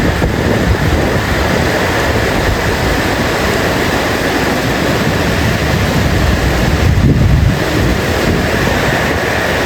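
Loud, steady rushing noise with uneven low rumbling swells.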